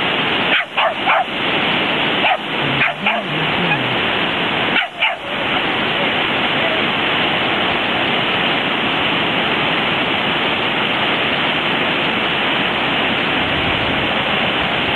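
Steady rush of ocean surf at the beach, with a few short dog barks in the first five seconds.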